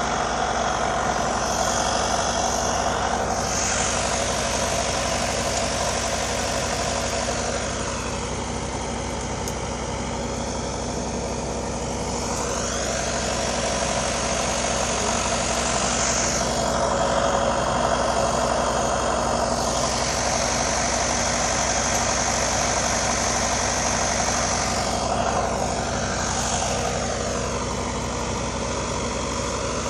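A steady mechanical drone, like an engine running, holding a constant hum with a hiss over it throughout.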